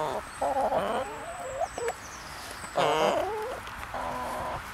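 Buff Brahma hens clucking in short broken calls, with one louder, longer call about three seconds in.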